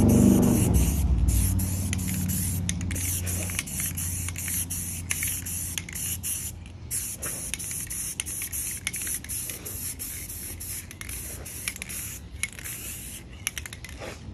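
Aerosol spray paint can hissing in many short bursts with brief pauses between, as paint is sprayed on in quick passes. A low rumble sits under the first couple of seconds.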